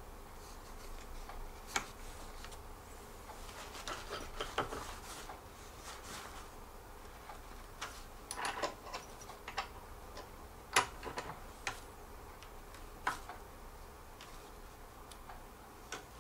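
Sparse, irregular light clicks and ticks of a small metal assembly tool working the bolts that hold the chair's wooden legs, tightening them, with a cluster of clicks a few seconds in and another about halfway through.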